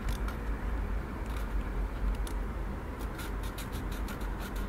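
Felt-tip marker scratching on paper in short strokes, a run of faint ticks that grows busier near the end, over a low steady hum.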